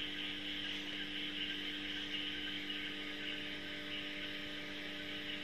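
Steady background hum with a hiss and a few fixed low tones, unchanging throughout and cutting off abruptly at the end.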